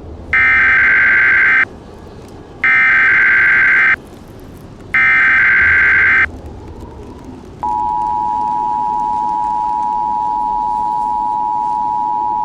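Emergency Alert System tones: three short bursts of SAME header data, each a harsh digital screech, then the steady two-tone EAS attention signal starting a little past halfway.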